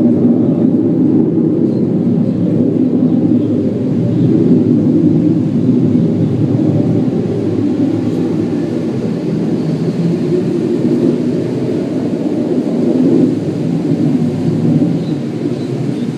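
A loud, low, continuous rumbling drone from the sky that slowly swells and eases. It sounds like an airplane passing high overhead, though the recorder says it doesn't seem to come from an airplane, and its source is unexplained.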